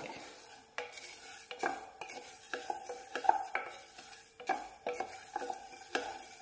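Wooden spatula stirring sugar and water in a stainless steel saucepan, scraping and knocking against the pan in repeated strokes about two a second. The sugar granules are still undissolved: the first stage of making the sugar syrup.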